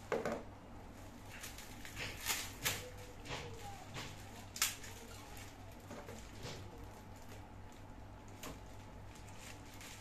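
Clear plastic packing sleeve crinkling and rustling in short bursts as it is worked off the sections of a new fishing rod, with a few sharp clicks and taps, the loudest just after the start and about four and a half seconds in.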